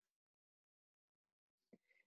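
Near silence: room tone, with one faint, brief sound near the end.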